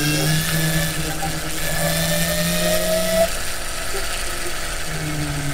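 Aeon Ai-1 Sport electric scooter's drive motor whining under way, over road and wind noise. The whine climbs steadily in pitch as the scooter accelerates, then drops away about three seconds in.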